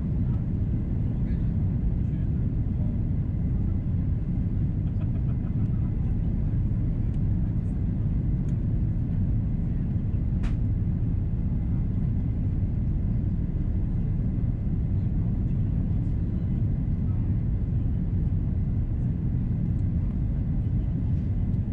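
Steady low rumble inside the cabin of an Airbus A330-343 on approach: engine and airflow noise heard from a window seat. A single short click about halfway through.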